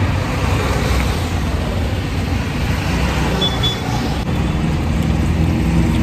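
Steady road traffic noise: a continuous low rumble of passing vehicles.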